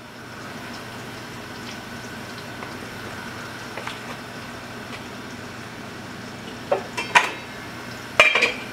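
A pot of water bubbling on a gas burner with a steady hiss, then a few sharp metal clinks near the end as the lid is set on the pot.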